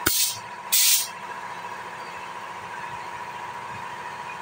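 Compressed-air spray gun hissing in two short bursts in the first second, two trigger pulls spraying top coat over a truck cab roof, over a steady background hum.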